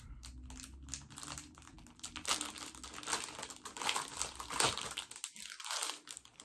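Paper start guide being unfolded and handled: an irregular run of crinkling and rustling that grows louder about two seconds in.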